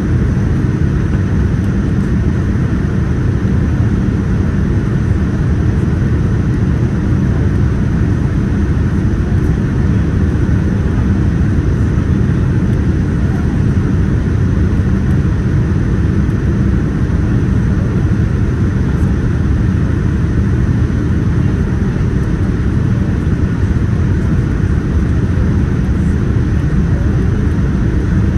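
Steady low roar inside the cabin of a Boeing 787-10 airliner, engine and airflow noise heard from a window seat while the jet descends toward landing.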